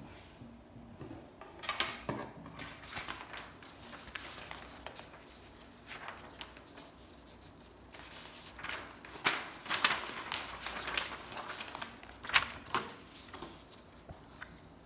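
Paper and pen handling on a desk: scattered rustling and scratching in short bursts, with a sharp click about twelve seconds in.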